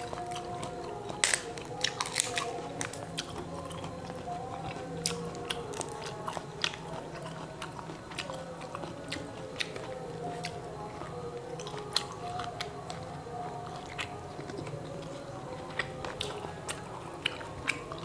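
Matoa fruits being cracked open by hand and eaten: sharp crackles of the brittle shells, a cluster of them a second or two in and more scattered after, with chewing of the fruit flesh.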